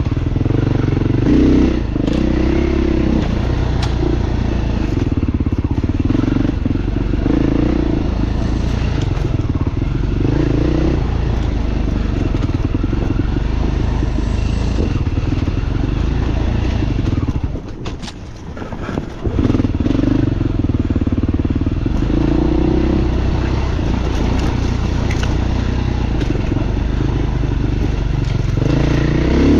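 Beta dirt bike engine running under varying throttle while being ridden. A little past the middle the engine sound drops away for about two seconds, then picks back up.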